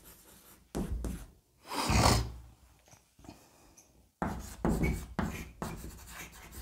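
Chalk writing on a blackboard: short scratchy strokes and taps in separate bursts, coming thick and fast from about four seconds in.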